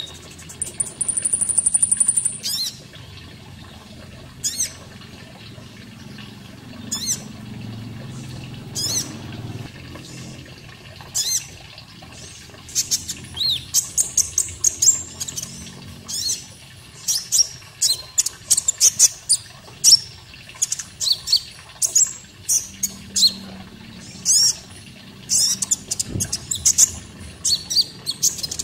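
Olive-backed sunbird (konin) song: a high buzzing trill for about two seconds, then sharp high chirps, scattered at first and coming in quick clusters through the second half, over a faint background of running water.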